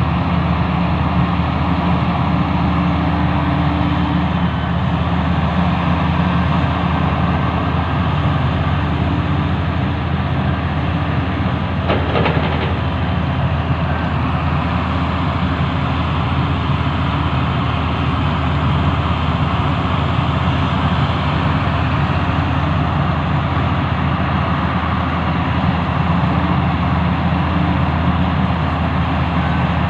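Sumitomo SH350 excavator's diesel engine running steadily, with a brief clatter about twelve seconds in.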